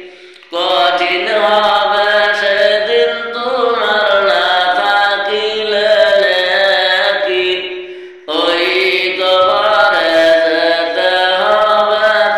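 A man singing a Bengali gazal, an Islamic devotional song, in long drawn-out wavering notes, pausing for breath about half a second in and again near eight seconds.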